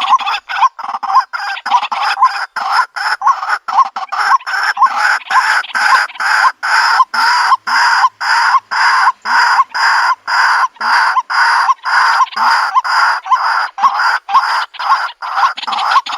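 White-breasted waterhen calling: a steady, unbroken run of repeated short notes, about three a second.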